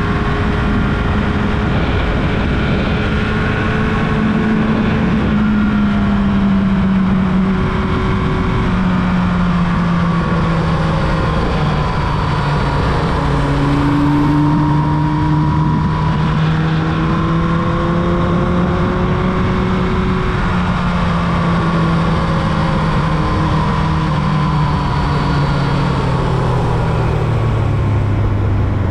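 Carbureted Yamaha YZF-R1's inline-four engine running steadily, its pitch drifting slowly up and down and settling lower near the end, over a steady low rush.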